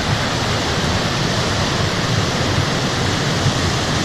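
Waterfall cascade rushing steadily over rocks, a dense, even rush of water.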